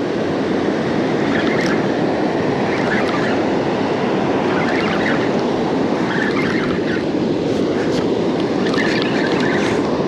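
Steady rush of ocean surf breaking on a beach, mixed with wind buffeting the microphone.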